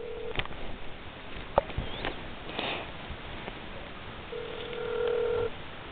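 Ringback tone of an outgoing mobile phone call, heard from the handset: a steady low tone that stops just after the start and sounds again for about a second near the end, with clicks of the phone being handled in between.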